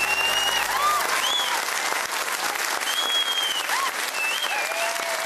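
Studio audience applauding and cheering, with high cries gliding up and down over the clapping.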